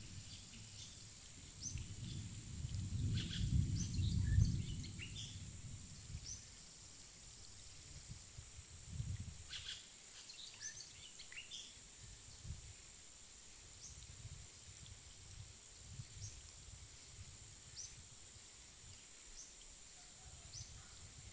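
Outdoor ambience: a steady high-pitched insect drone with scattered short bird chirps. A low rumble swells and fades a few seconds in and is the loudest sound.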